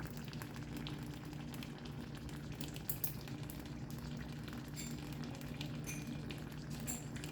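Clay pot of chicken rice sizzling and crackling on the stove, scattered small pops over a steady low hum, as oil and soy sauce crisp the rice at the bottom.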